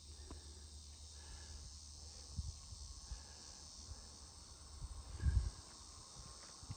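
Quiet outdoor ambience: a steady high chirring of insects over a faint low rumble, with a brief louder low rumble about five seconds in.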